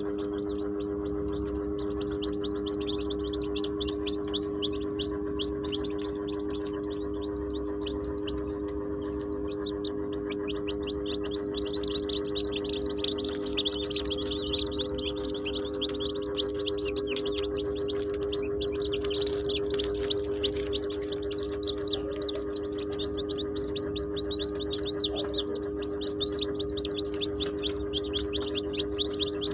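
Newly hatched chicks peeping: many short, high cheeps in quick runs that swell and fade, loudest in the middle and near the end, over a steady low hum.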